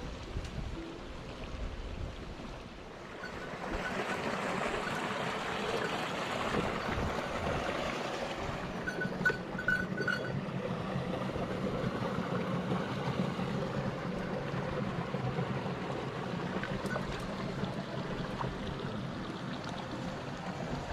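Mountain stream water rushing steadily, growing louder a few seconds in, with a few faint clicks about halfway through.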